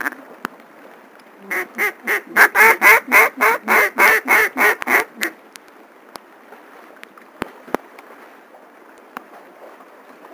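Mallard duck call blown in a long run of about fifteen quick quacks, about four a second, loud at first and trailing off, calling to ducks on the water.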